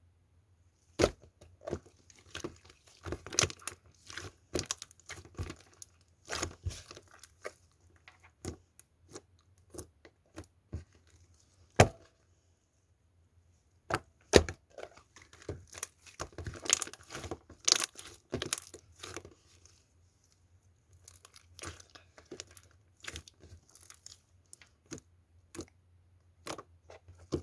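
Orange slime being handled and stretched: irregular sticky crackles, pops and tearing sounds, with two short pauses. A faint low hum runs underneath.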